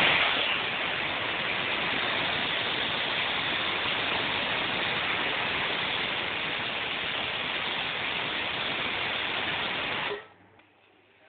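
Butterfly pressure cooker whistling: steam hisses out past the lifted weight valve in one long, even blast of about ten seconds. It is loudest at first, then steady, and cuts off suddenly as the weight reseats. This is one of the counted whistles showing the cooker is at full pressure.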